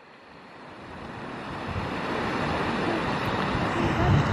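Rushing river water, fading in over the first two seconds and then a steady rush, with some low wind rumble on the microphone near the end.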